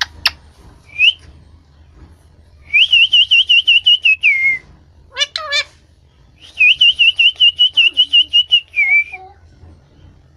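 Pet parrot whistling: two long, rapidly warbling whistles, each ending in a falling note, with a short squawk-like call between them.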